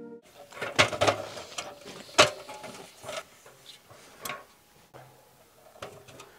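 Aluminium stepladder clanking and rattling as it is carried and stood against a wall: a series of sharp metallic knocks, some ringing briefly, the loudest about two seconds in.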